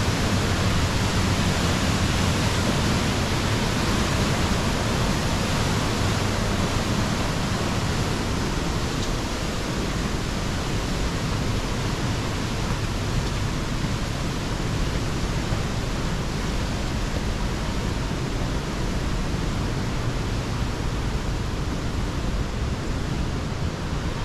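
Steady rushing of waterfalls and creek water through a rock gorge, an even hiss with no break.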